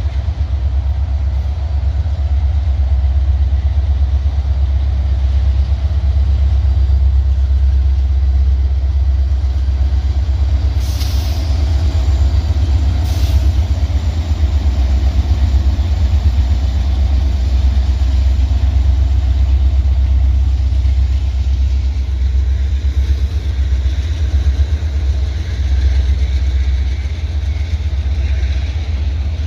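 A heavy diesel engine running steadily, a deep pulsing rumble, with two short hisses about 11 and 13 seconds in.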